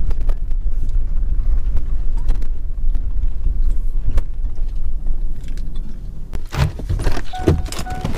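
Inside a pickup truck's cab, a steady low rumble of the truck running and rolling slowly. Near the end come several clicks and knocks as it is stopped and the driver's door is opened, and the truck's warning chime starts beeping in a steady repeating pattern.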